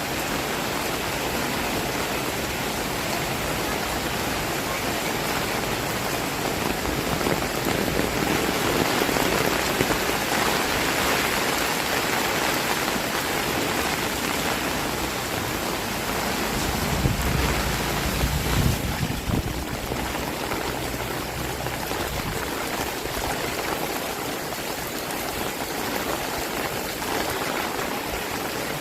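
Heavy rain falling in a steady, dense hiss that swells for a few seconds. A low rumble rises about two-thirds of the way through and fades.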